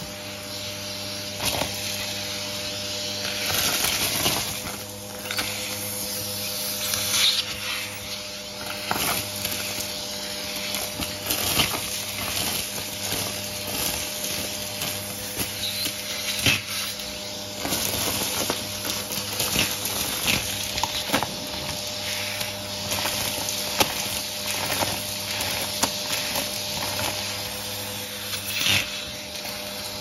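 Vacuum cleaner running steadily, a hiss with a motor hum, while its wand sucks up a mix of confetti, sequins and small plastic bits from a carpet mat. Frequent sharp clicks and rattles come as the pieces are pulled up the tube.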